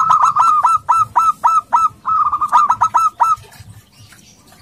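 Male zebra dove (local perkutut) calling: a fast series of short, hooked cooing notes, about five a second, in two runs with a brief break near the middle. It stops about three seconds in.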